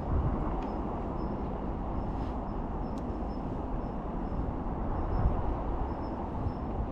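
Steady outdoor background rumble with a faint, high chirp repeating regularly, and a single sharp click about three seconds in.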